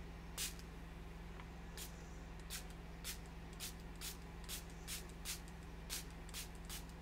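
Small plastic fine-mist spray bottle of acrylic ink pumped in quick short sprays, a dozen or so hisses roughly two a second, over a steady low hum.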